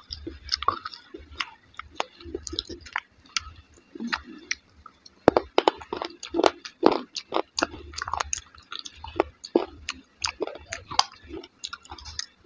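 Chewing and mouth smacks of someone eating soft, yogurt-soaked dahi vada, an irregular run of short, sharp smacks and clicks.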